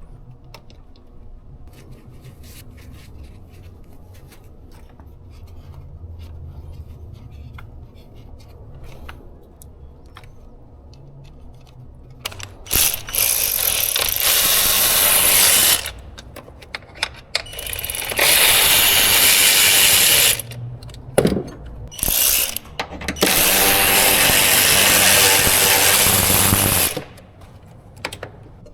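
Ratchet wrench clicking in short runs, then three long, loud bursts of a power tool, each a few seconds long and starting and stopping sharply.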